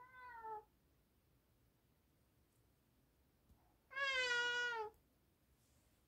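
An animal's cry, twice: a short call that falls slightly at the start, then a louder, longer call about four seconds in.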